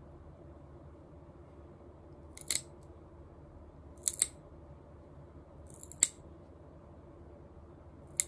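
Claw clippers snipping a cat's claws: a short sharp snip every couple of seconds, one of them a quick double.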